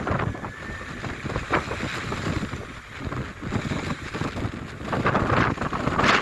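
Strong wind buffeting the microphone over the surf of a stormy sea, with a louder surge about five seconds in.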